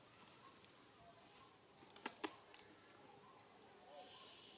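A small bird repeating one short, high chirp about every second and a half, four times, over faint outdoor background. Two sharp clicks a little over two seconds in are the loudest sounds.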